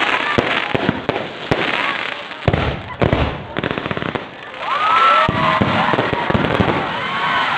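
Aerial fireworks going off in a quick string of bangs and crackles, thinning out after about four seconds, with people's voices calling out over the last few seconds.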